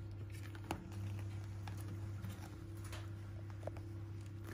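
Young puppies scrambling about in padded fabric pet beds: scattered light taps and scuffles of small paws, with one sharper tap near the start. A steady low hum runs underneath.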